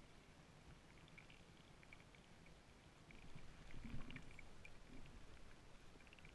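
Faint, muffled underwater ambience through a camera housing, with scattered light clicks and one low thump about four seconds in, as the camera is jostled.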